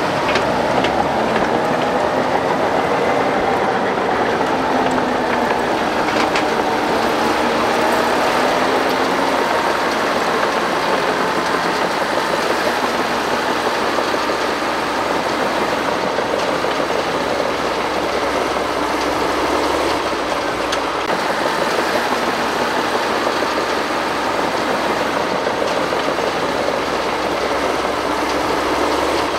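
Diesel engines of working hydraulic excavators running steadily, their pitch wavering slowly.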